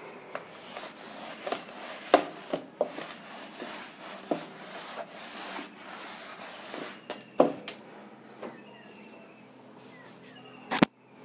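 Cloth rubbing across a chalkboard, wiping it clean, with several sharp knocks over the scrubbing. The rubbing dies down after about seven seconds, and a louder knock comes near the end.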